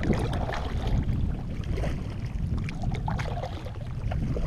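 Double-bladed kayak paddle dipping and pulling through lake water in alternating strokes, a splash about once a second, over a steady low rumble.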